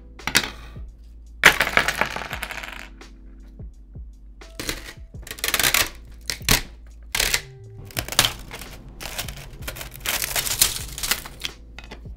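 Hard 3D-printed plastic parts clattering and knocking on a wooden tabletop as they are set down and fitted together. Crinkly rustling comes in between the knocks as protective film is peeled off a plexiglass panel.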